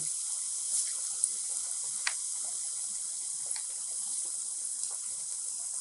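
Hot oil sizzling and bubbling steadily in a kadai as potato bafvada fry on a low flame, with a few faint pops.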